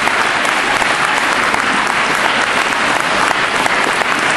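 A church congregation applauding steadily with dense, sustained clapping.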